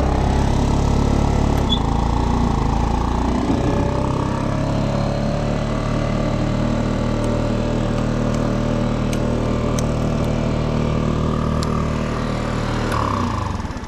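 Small 49cc scooter engine idling steadily, its pitch wavering a little in the first few seconds.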